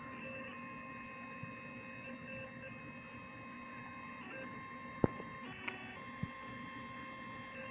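Diode laser engraver's stepper motors whining as the head traces a circuit-board pattern into vinyl film. The steady tones switch pitch every second or two as the head changes direction. A sharp click about five seconds in, then two fainter clicks.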